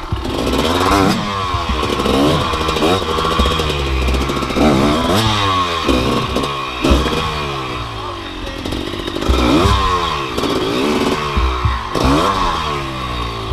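Gas Gas EC 250 two-stroke dirt bike engine revved hard in repeated short throttle bursts, its pitch rising and falling over and over.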